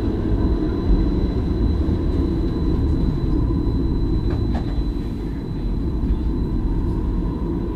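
Stadler Variobahn light-rail tram running, heard from inside the driver's cab: a steady low rumble from the wheels and running gear, with a thin, steady high-pitched whine over it. Two faint ticks come about halfway through.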